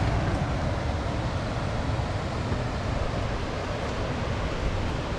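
Steady rushing of a river with rapids and a waterfall, with a low wind rumble on the microphone.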